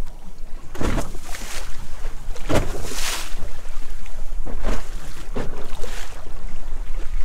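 Wind buffeting the microphone over open, choppy sea, with water splashing and slapping against the boat's hull in irregular surges every second or so.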